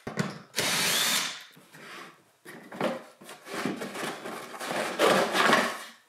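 Cordless drill/driver spinning briefly about half a second in, backing a screw out of a cardboard panel. This is followed by the stiff cardboard panel scraping and rustling as it is worked loose and pulled off, loudest near the end.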